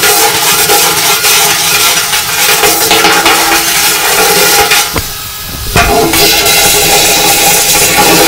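Vax wet-and-dry vacuum cleaner running loud and steady, its hose nozzle sucking diesel sludge and water off the floor of a steel fuel tank. The suction sound drops sharply about five seconds in and comes back under a second later.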